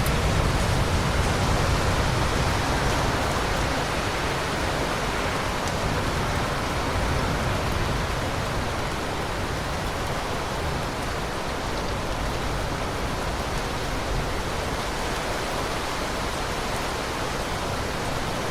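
Steady heavy rain, an even hiss, with a low rumble of distant thunder that eases over the first few seconds.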